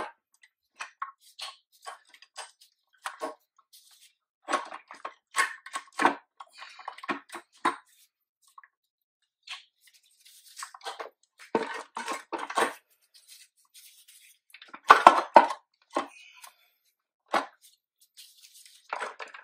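Metal parts of a Mitsubishi DCT470 dual-clutch transmission clinking and knocking as gear sets and components are handled and worked into place in the case: irregular clicks and clunks in clusters, the loudest about 15 seconds in.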